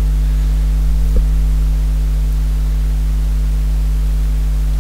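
Steady electrical mains hum with its evenly spaced overtones, carried on the recording, with a faint hiss above it. A single short click about a second in.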